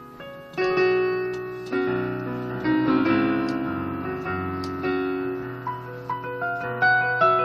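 Solo digital piano playing a blues piece. After a brief lull at the start, chords are struck about once a second and left to ring, with notes coming quicker near the end.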